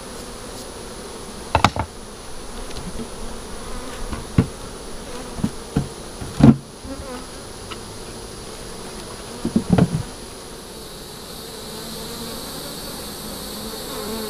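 Honeybees buzzing steadily around an open hive. Several sharp knocks cut through the buzz: a pair early, a few single ones with the loudest a little past halfway, and a quick rattle of three or four about two-thirds in.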